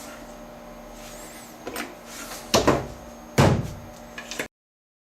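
Wooden box being closed up: a few wooden knocks and clunks, the loudest about three and a half seconds in, followed by small clicks, over a low steady shop hum; the sound then cuts off abruptly.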